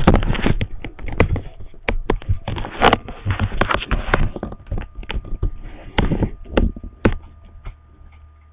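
Handling noise on the camera's microphone: a dense, irregular run of knocks, clicks and rubbing as the camera is picked up and moved about, dying away about seven and a half seconds in.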